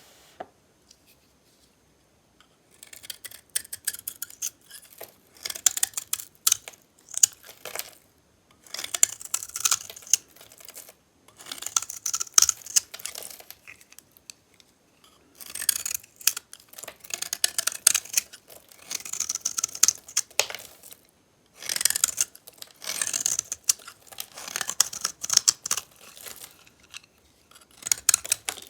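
Dry soap bars painted with metallic paint being cut with a blade: repeated crisp scraping strokes with sharp clicks, in runs of a second or two separated by short pauses, starting about three seconds in.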